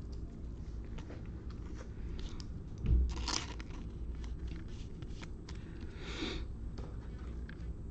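Trading cards and their pack wrapper being handled: scattered light clicks and crinkling rustles, a thump about three seconds in and a brief swishing slide about six seconds in.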